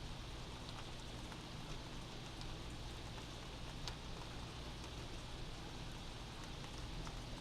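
Steady rain heard from inside a house, an even hiss with scattered drips and drop ticks.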